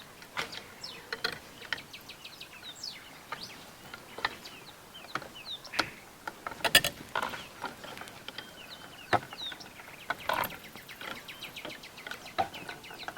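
Steel snare wire clicking and scraping as it is wound by hand into tight coils, in scattered sharp clicks. Birds chirp in the background.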